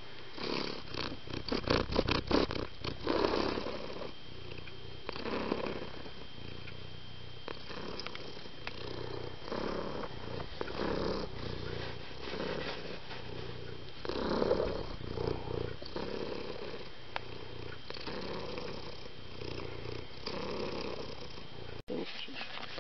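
Domestic cat purring close to the microphone, a steady rumble that swells and fades with each breath, about every second and a half.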